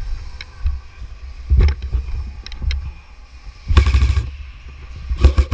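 Low rumbling handling and wind noise on the microphone, broken by several thumps and clicks, with a louder rustling burst lasting about half a second near the middle.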